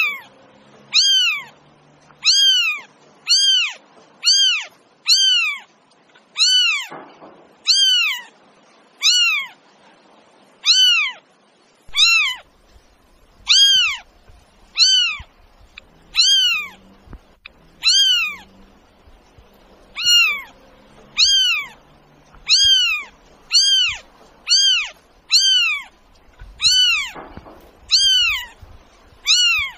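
Domestic cat meowing over and over, short meows that rise and fall in pitch, about one a second at a steady pace, each almost identical to the last.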